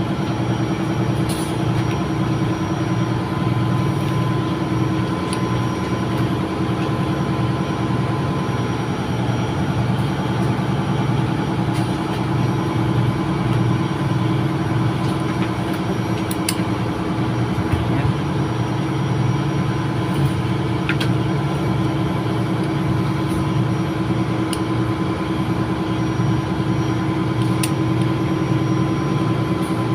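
Ship's engine-room machinery running steadily: a constant drone with a low hum and a steady higher tone, with a few faint clicks over it.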